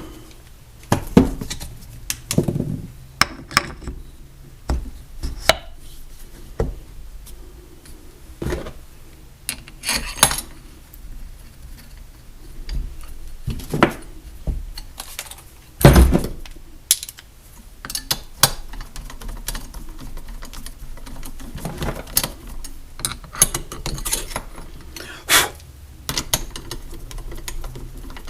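Irregular metal clinks and knocks as the parts of a trolling motor's lower unit are handled and fitted back together, with one louder knock a little past halfway.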